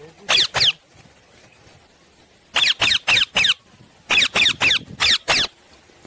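Indian ringneck parakeet screeching: short, sharp, high calls, each falling in pitch, in quick runs of two, then four, then about five.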